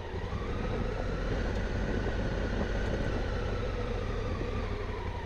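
Honda Africa Twin adventure motorcycle engine running at low speed, a steady low drone whose pitch rises a little and then eases back down.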